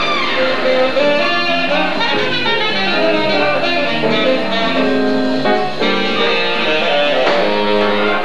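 A big band playing jazz live, with electric guitar and horns over the drum kit.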